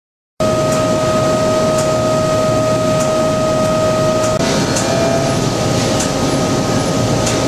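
Steady industrial machine noise in a machine shop: a loud, even hum with a steady whine over it and a few faint clicks. The whine shifts slightly about four seconds in.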